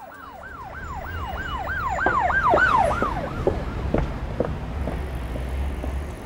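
Emergency vehicle siren yelping in quick rising-and-falling sweeps, about three to four a second, growing louder and then stopping about three seconds in. After that come footsteps on pavement at a walking pace over a low rumble.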